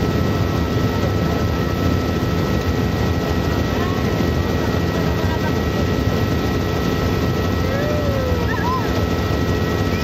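Helicopter engine and rotor noise heard inside the cabin: a steady, loud drone with a steady high whine over it.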